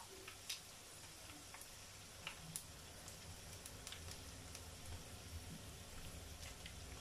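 Dried fish (daing) frying in shallow oil in a pan: a faint, steady sizzle with a few scattered small ticks.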